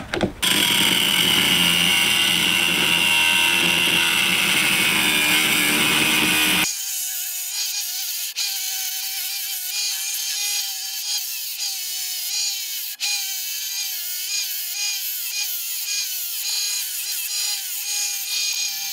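A power tool running steadily for about six and a half seconds, then cutting off abruptly; background music with shifting notes follows.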